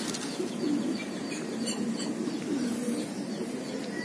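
Pigeons cooing, a low wavering coo repeated several times, with a few faint high chirps.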